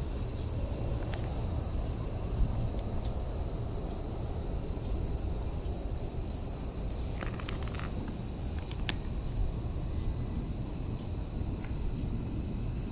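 Outdoor ambience: a steady high-pitched insect drone, with low wind rumble on the microphone and a few faint clicks about two-thirds of the way through.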